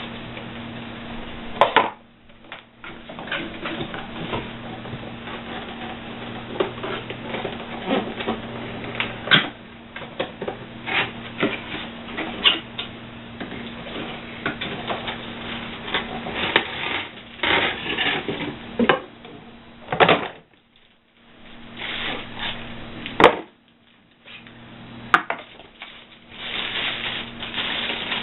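Handling noises from unboxing: plastic packaging and parts rustling, clicking and knocking irregularly, over a steady low hum.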